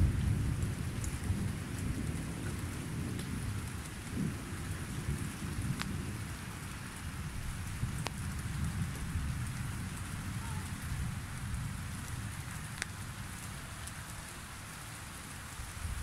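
Low rolling thunder over steady rain. The thunder is strongest at first and slowly dies away. A few single drops tick sharply now and then.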